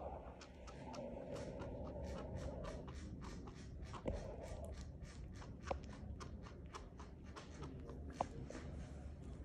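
Chinchilla chewing a piece of banana: a steady run of quick clicking chews, about four or five a second, with a few sharper clicks standing out.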